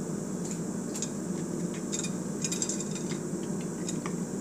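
A steady low mechanical hum, with a few faint clicks and crackles near the middle.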